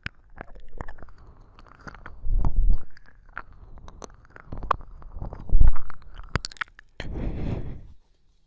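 ASMR ear licking close to a binaural microphone: wet mouth clicks and smacks with a couple of louder low thumps and a short noisy rush near the end, then it stops suddenly.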